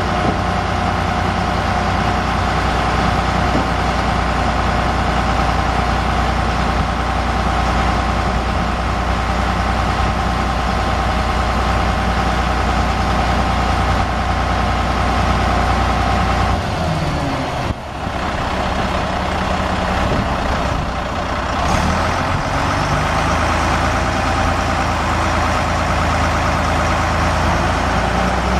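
Moxy MT30S haul truck's Scania six-cylinder turbo diesel engine running steadily. About two-thirds of the way through, its deep low note drops away and the sound wavers for several seconds, with a brief dip, before the steady low note returns near the end.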